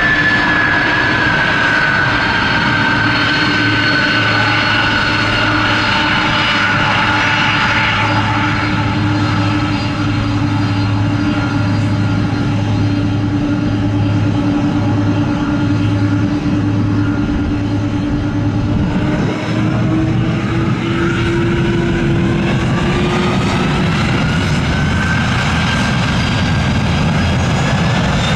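Aircraft engines running steadily and loudly, their tones sliding slowly lower and then rising again about two-thirds of the way through as power is changed.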